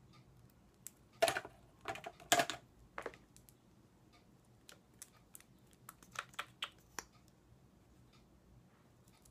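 Makeup items being handled and set down, an eyelash curler and a mascara tube among them: a cluster of sharp clicks and knocks about a second in, then a run of lighter separate clicks a few seconds later.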